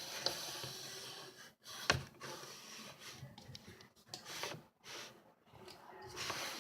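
Slime being worked by hand: irregular sticky crackling and rubbing noises with small clicks, one sharp click about two seconds in, broken by a few brief silent gaps.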